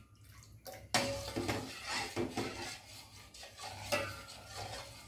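Steel spoon stirring a thin coconut-milk and cornflour mixture in a stainless steel pot, scraping and clinking irregularly against the pot's bottom and sides, with a sharp clink about a second in. The stirring is kept up without pause on the flame so the mixture does not catch on the bottom.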